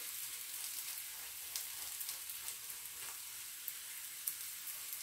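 Mtabga flatbread frying in a hot flat crêpe pan, melted butter brushed on its surface sizzling steadily, with a few faint crackles.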